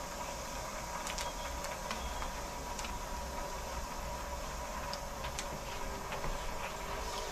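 Steady low hiss of water running while a newly installed 50-gallon water heater fills, with a faint scattered ticking from a paper sticker being handled and pressed onto the tank.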